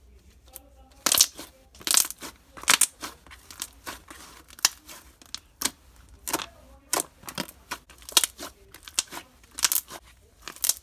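Glossy white-glue slime being squished and stretched by hand, making sharp, wet clicks and pops about once or twice a second.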